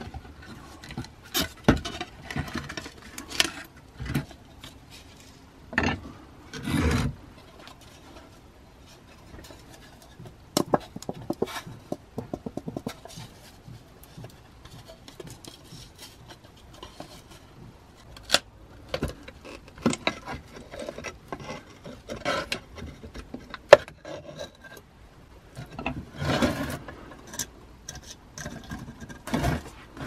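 Handling noises from a damaged wooden coffee-grinder box being taken apart by hand: scattered knocks and clicks of wood on a wooden table, with short scraping and rubbing as loose decorated side panels are worked free. A quick run of small ticks comes about halfway through.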